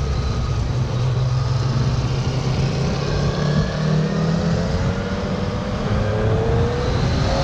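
Motorcycle engine running under way through traffic, heard from the rider's own bike with a steady rush of wind noise; the engine note climbs slowly through the second half as the bike accelerates.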